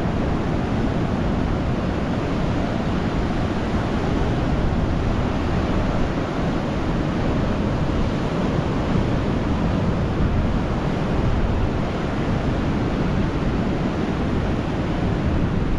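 Steady rushing road and wind noise of a van driving, even throughout with a strong low rumble.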